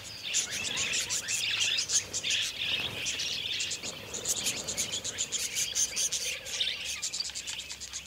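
A flock of wild budgerigars chattering: a steady twitter of many fast, high chirps overlapping one another.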